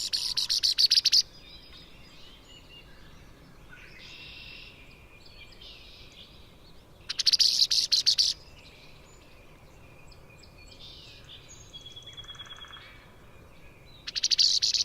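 Female red-winged blackbird giving rapid, sputtering chatters, each about a second long and about seven seconds apart, with fainter songs of other birds in between.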